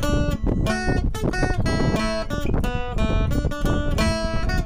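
Background music: a strummed acoustic guitar playing chords.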